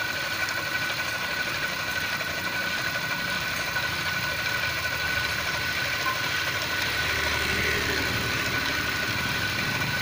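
Centrifuge bitumen extractor's electric motor running, spinning the sample bowl to throw the benzene and dissolved bitumen out of the mix; a steady whine.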